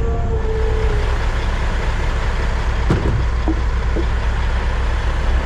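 Crane truck's engine running steadily, with a short knock about three seconds in.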